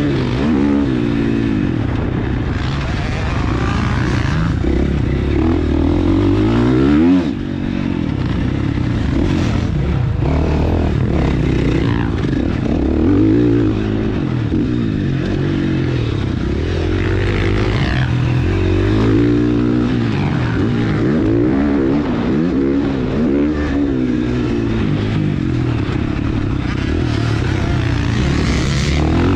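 KTM 450 SX-F four-stroke single-cylinder motocross engine heard from on the bike, revving up and falling back again and again as the rider works the throttle and gears around the track. The sound drops off suddenly for a moment about seven seconds in, then picks up again.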